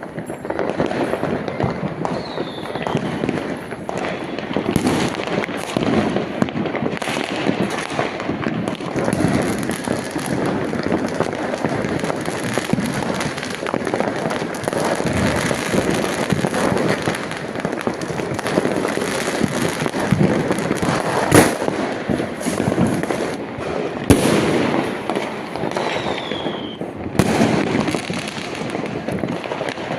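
Fireworks and firecrackers going off without a break, a dense crackling and popping, with a sharp bang about 21 seconds in and another about 24 seconds in. A short falling whistle sounds twice, once near the start and once near the end.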